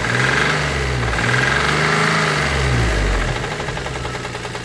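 Geo Metro engine revved up and down a few times, then settling to idle with an even, rapid knocking from the bottom end. This is rod knock, with main bearings the owner finds a little rough.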